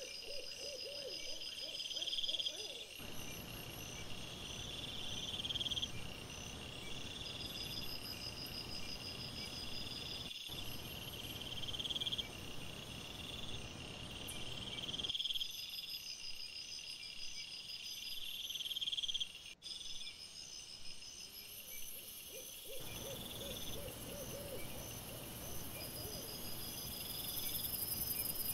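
Night-time insects calling: short high trills repeat every second or two, over a steady background. A lower, rapidly repeated call comes in near the start and again about two-thirds of the way through.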